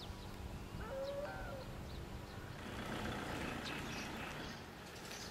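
Rural outdoor ambience: a faint low hum that fades out, one short animal call that bends in pitch about a second in, and a few faint chirps and clicks after it.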